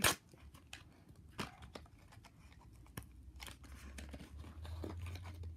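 Plastic blister packaging being pried and torn open by hand: faint crinkling and scattered small clicks and tears, with one sharp snap at the start.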